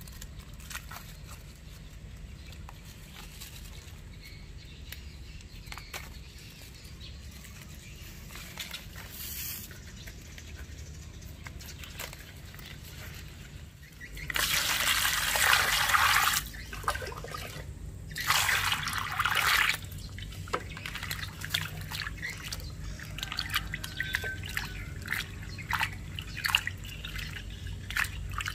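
Water poured into an aluminium basin of bok choy in two loud spells, each about two seconds long. Then hands swish and rub the leaves in the water, with small splashes and drips.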